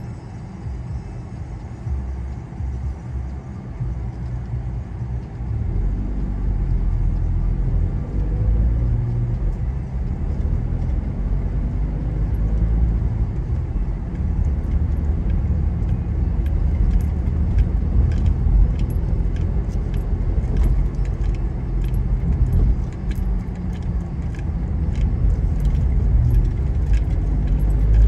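Car driving, with engine and tyre noise that grows louder about six seconds in and wavers in pitch as the car pulls uphill. Light rattling clicks come in through the second half.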